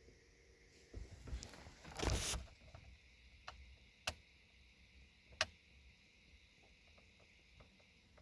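Faint sounds from a 2010 Mercedes C180's faulty rear door lock actuator trying to work under a diagnostic functional test: a brief whirr about two seconds in, then three sharp clicks. The lock does not operate.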